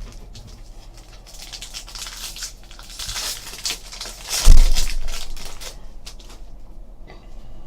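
Foil trading card pack wrappers crinkling and being torn open, with a sharp thump about four and a half seconds in.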